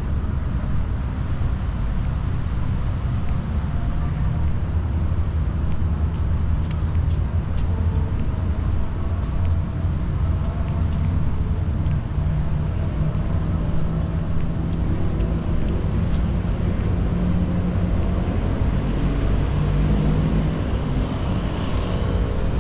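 Steady rumble of road traffic, with engines humming.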